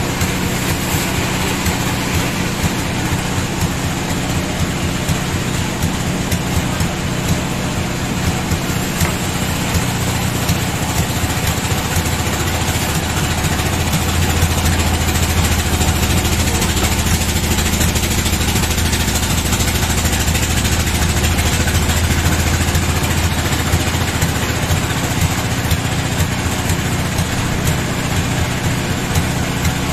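Log band saw mill running steadily without cutting: a continuous low machine drone with a hum that grows a little louder for several seconds in the middle.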